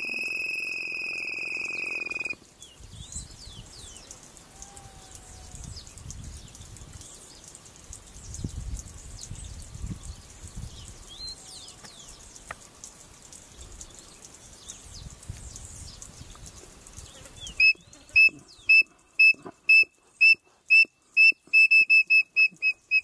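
Codorna piriri whistled calls. A long steady whistle stops about two seconds in. After a quieter stretch with faint chirps of other birds, a run of short, loud piping notes begins near the end and quickens from about two to about four a second.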